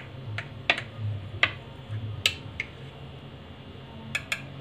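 A knife cutting a slice of sponge cake on a ceramic plate, with about eight short, sharp clicks and taps, irregularly spaced, as the blade touches the plate. A low steady hum runs underneath.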